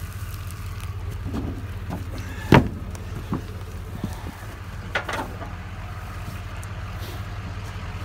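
Boots and a round hay bale being shoved across a wooden flatbed trailer deck: one heavy thud about two and a half seconds in, then a few lighter knocks. A vehicle engine idles underneath with a steady low rumble.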